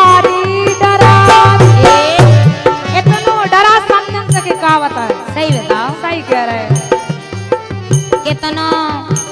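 Women singing a Bundeli wedding gari, a teasing folk song, with a steady drum beat and percussion accompaniment.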